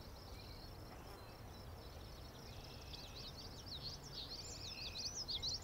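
Faint outdoor ambience of small birds chirping, with many short high chirps that grow busier in the second half over a soft steady hiss.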